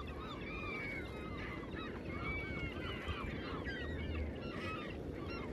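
A flock of gulls calling over the water as they feed: many short, overlapping cries, with a few longer drawn-out calls, over a steady low background noise.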